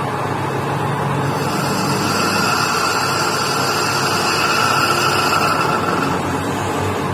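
Metal lathe running, a steady mechanical drone with a low hum; a higher steady whine comes in about a second in and fades out near six seconds in.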